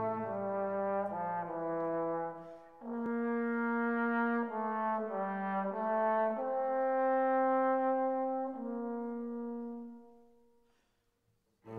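Background music of brass instruments playing slow, held chords that change every second or two, fading out near the end.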